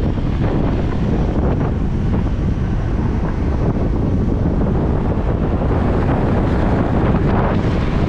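Steady wind buffeting on the microphone over the road and engine noise of a BMW Z4 convertible being driven.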